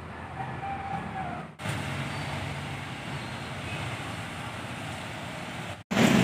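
Street traffic noise with a motor vehicle running. Near the end a much louder engine close by sets in abruptly.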